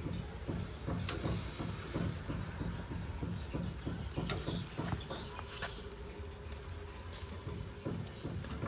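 Metal grill tongs knocking and scraping on a wire grill grate while turning bananas over a charcoal fire: a run of irregular clicks and knocks, several a second, over a low rumble.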